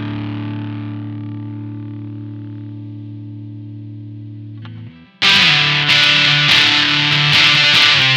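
Electric guitar, a Squier Telecaster through a Maestro Fuzz Tone FZ-M low-gain fuzz pedal: a held fuzzy chord slowly fades, then after a short break about five seconds in a louder fuzz riff starts.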